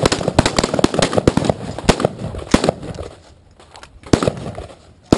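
Several AR-15 rifles on a firing line shooting controlled pairs: a ragged string of overlapping sharp shots for about three seconds, then a few more shots about four seconds in.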